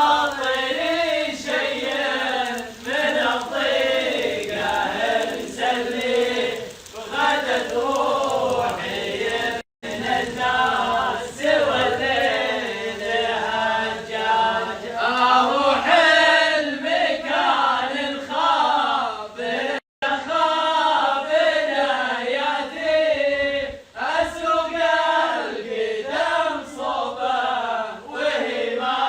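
Male voices chanting a melodic Arabic poem in long drawn-out sung lines. The sound cuts out abruptly for a moment about ten seconds in and again about twenty seconds in.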